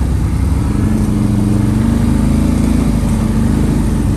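ATV engine running steadily at low speed on a forest trail, a low engine drone that swells slightly in the middle.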